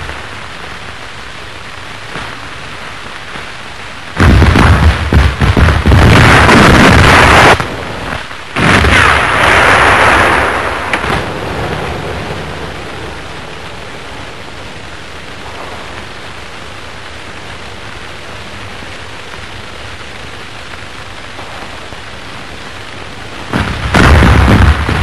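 Steady hiss of falling rain, broken by loud booms of artillery fire. One boom comes about four seconds in and rumbles on for a few seconds, another follows about a second after it and fades away, and a third comes near the end.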